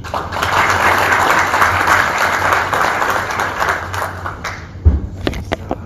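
Audience applauding, a dense patter of many hands clapping that fades out after about four and a half seconds. A few last claps and a loud thump follow near the end.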